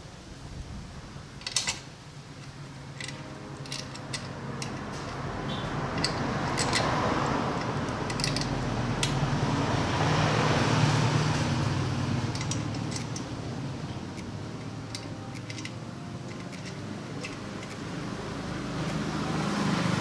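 Scattered small metal clicks and taps as a bolt and steel bracket are handled and fitted to a motorcycle's exhaust mount, the sharpest about a second and a half in. Under them a steady low hum, and a broad rushing noise that swells and fades around the middle.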